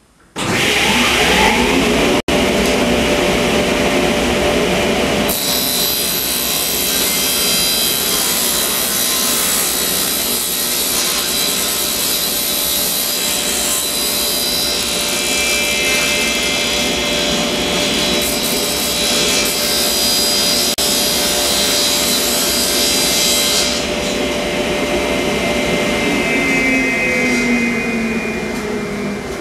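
Wadkin table saw running, ripping a long thin wooden board along the fence with a steady high cutting noise from about five seconds in until about twenty-four seconds. Near the end the cut is finished and the blade's pitch falls as the saw winds down.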